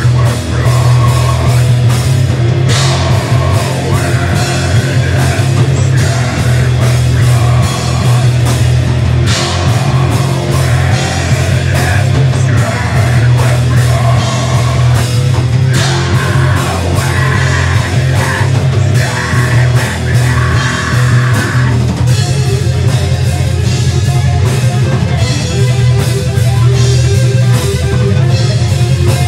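Live heavy metal band playing loud: distorted guitars, bass and a pounding drum kit, with a vocalist singing over it. The vocals drop out about two-thirds of the way through and the instruments play on.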